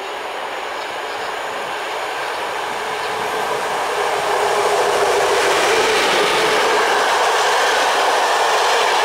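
SU45 diesel locomotive hauling three passenger coaches past at close range. The noise of the locomotive and its wheels on the rails grows louder as it approaches, reaching its loudest about four to five seconds in as the coaches roll by.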